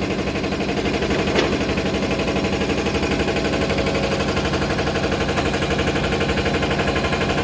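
Toilet-paper rewinding machine running steadily with a fast, even mechanical clatter, with one sharp click about a second and a half in.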